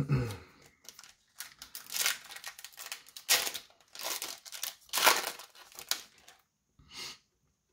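Foil trading-card pack wrapper being torn open and crinkled: a run of irregular crackling rustles, after a short thump at the very start.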